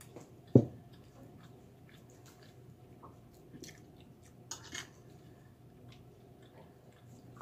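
Mouth sounds of eating: chewing with small clicks, and a brief crunchy cluster a little past halfway. A single sharp knock about half a second in is the loudest sound.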